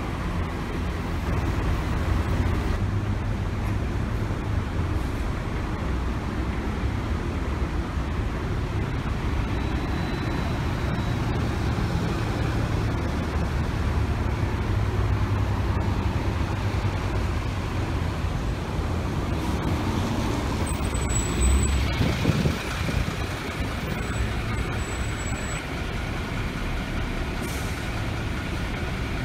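Diesel engines of city buses running as they pull around a station bus terminal: a steady low rumble. About three-quarters of the way through it swells louder, and a short hiss of air brakes follows.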